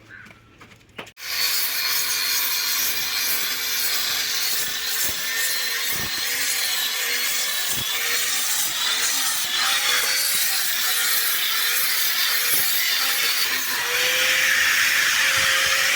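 Angle grinder starting about a second in and grinding metal, its steady whine dipping and recovering as the disc bites under load.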